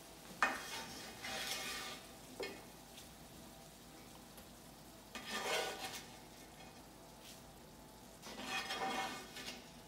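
Spatula stirring sausage into apples and onions in a nonstick frying pan, in three short bursts of scraping, with a sharp click just after the start and a light knock a couple of seconds in.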